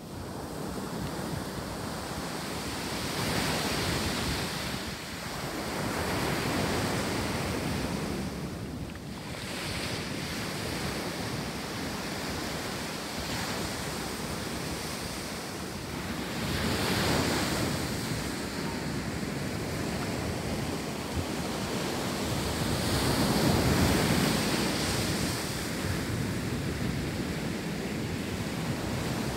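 Ocean surf breaking on a sandy beach, a steady wash that swells into louder breakers several times, with wind on the microphone.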